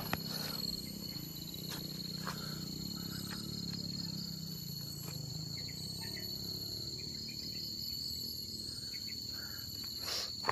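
Insects trilling steadily at one high pitch over a low, steady hum. A few soft crackles of footsteps on dry leaf litter come through, the clearest near the end.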